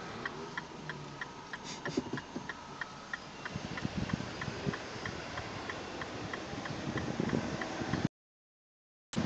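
A car's turn-signal indicator ticking steadily, about three clicks a second, inside the cabin over a low engine rumble. Near the end the sound drops out for about a second, and then a much louder engine cuts in.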